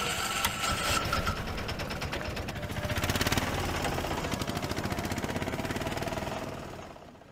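Motorcycle engine running with a rapid, even pulsing, picking up about three seconds in and fading out near the end.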